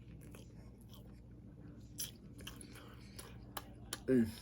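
A person chewing a mouthful of lemon chicken, with scattered small mouth clicks and smacks. Just before the end comes a short falling "mm".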